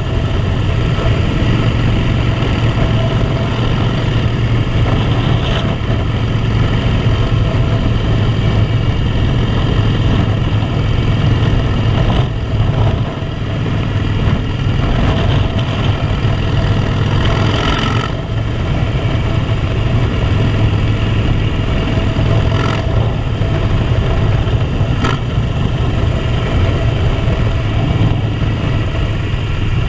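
Harley-Davidson V-twin motorcycle engine running steadily at road speed, heard from the rider's seat with a rush of wind noise over it. The engine note dips briefly a couple of times partway through, as when the throttle is eased.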